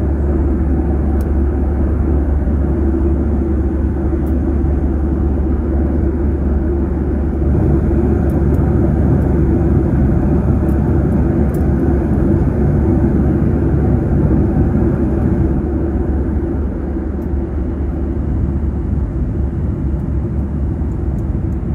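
Steady cabin noise of a Boeing 737-900 in flight, heard at a window seat: the rush of air and the low drone of its CFM56-7B engines. It gets a little louder for several seconds in the middle.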